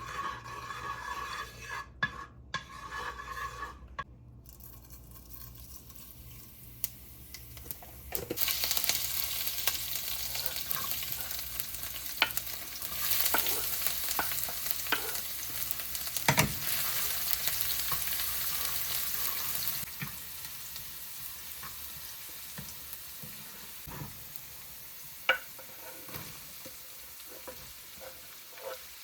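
Food frying and sizzling in a pan while it is stirred, with a utensil scraping and knocking against the pan. The sizzle gets much louder about eight seconds in and eases off again about twenty seconds in.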